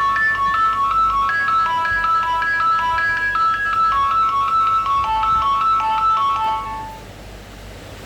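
A Nokia 7210 ringtone played on a Nokia 2760 mobile phone: a quick electronic melody of short notes that ends about six and a half seconds in, leaving faint hiss.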